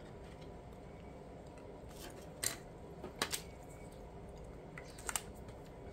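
A few short, sharp clicks and taps from small craft items being handled on a tabletop, spread a second or so apart over quiet room tone.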